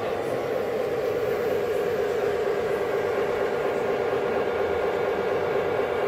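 Model railway layout's sound system playing a steady engine-like rumble with a fast, even flutter.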